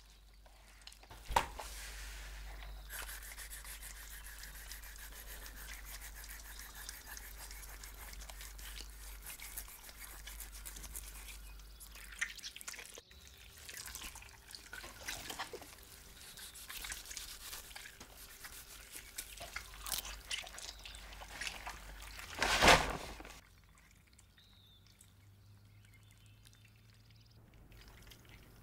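Hands gutting a large beluga sturgeon on a steel table: wet squelching and rubbing as the innards are pulled free, with scraping and small knocks. One louder brief burst comes about two-thirds of the way through.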